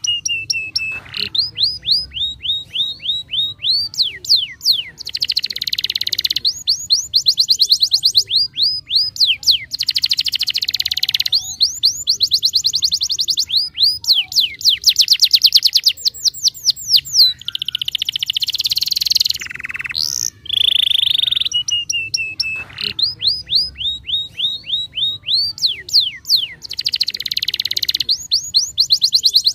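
Domestic canary in full, continuous song: phrases of repeated sweeping notes alternate with fast rattling trills, with a short break about twenty seconds in.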